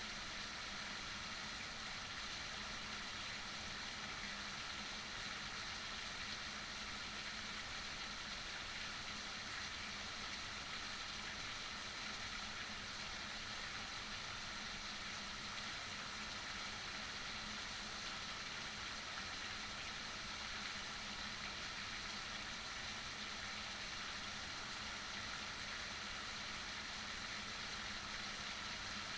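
Heavy rain falling steadily, an even hiss with no breaks, with a faint low hum underneath.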